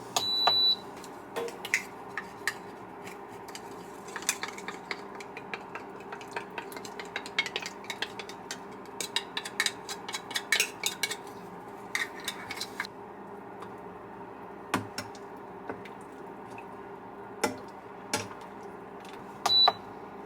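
Dishes and cutlery clinking and knocking in a run of short strikes, thickest in the middle, over a steady hum. A short high beep sounds right at the start and again near the end.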